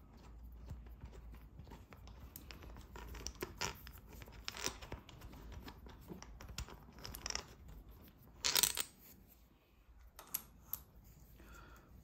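Scattered light clicks and scrapes of a hex key and small metal and plastic bicycle parts being handled, with one louder, brief scraping rustle about eight and a half seconds in and a couple of sharp clicks shortly after.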